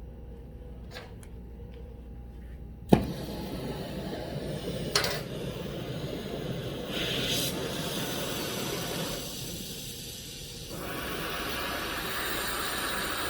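A handful of faint clicks, then a sharp pop about three seconds in as a gas torch lights. A steady hissing flame follows, with another click a couple of seconds later; the flame dips and rises in level a few times.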